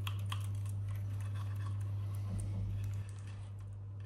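Faint light clicks and ticks of a cable and its plastic connector being handled and drawn through the printer's metal frame, over a steady low hum.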